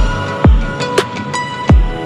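Electronic background music with a deep bass drum that drops sharply in pitch on each hit, sounding three times, over crisp clicking percussion and held synth tones.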